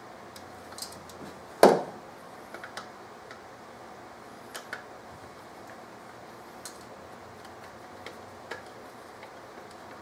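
A screwdriver working on the distributor's rotor screws, giving scattered small metallic clicks and taps, with one louder knock a couple of seconds in.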